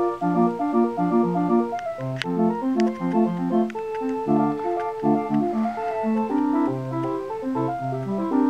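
Street-organ music from the electronic crank organ's stereo: a bouncy tune of short organ notes over a bass line.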